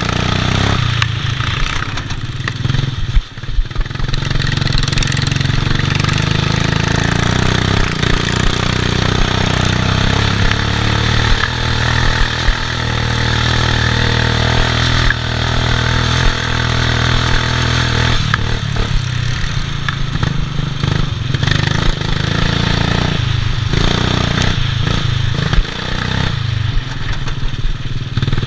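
Racing ride-on lawn mower's engine running hard, heard from on board, with the machine rattling over the bumpy grass and dirt track. The engine note dips briefly a few times.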